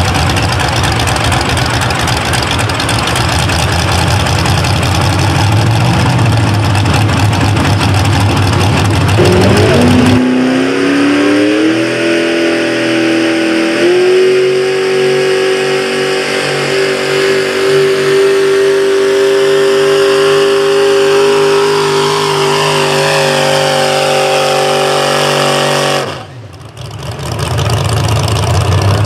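Modified pulling tractors' engines at full throttle. For about ten seconds one engine runs loud and rough; then another winds up in pitch, steps up again a few seconds later and holds a steady high rev as it drags the weight sled. Near the end it breaks off suddenly and loud engine noise returns.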